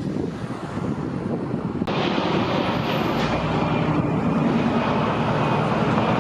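Steady vehicle engine rumble mixed with wind noise. About two seconds in it changes abruptly and becomes louder and brighter.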